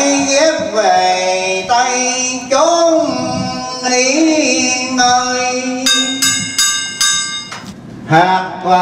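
A man chants Vietnamese Buddhist liturgy in long, held, wavering notes. About six seconds in, a bell rings in about five quick strokes.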